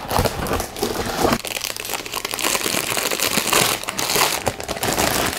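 Plastic wrapping around a keyboard crinkling and rustling as it is handled and pulled off, a dense crackle that gets fuller about two seconds in.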